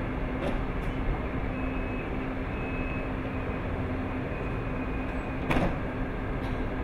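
Electric commuter train standing at the platform with a steady hum, a faint high tone sounding on and off; about five and a half seconds in, its sliding doors shut with a single sharp knock.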